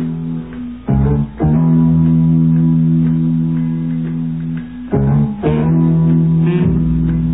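Background music with guitar and bass: long held chords that change about a second in and again about five seconds in.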